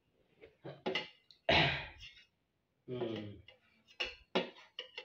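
Brief wordless voice sounds and breaths, a few separate bursts each about half a second long, with several short sharp clicks near the end.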